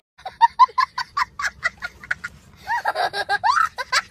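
A young child laughing hard in quick short bursts, about five a second, then a few longer, sliding laughs near the end.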